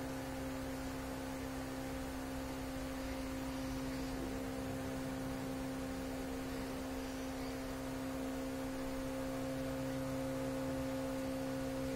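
A steady hum made of two constant tones, one low and one an octave above it, over a faint even hiss.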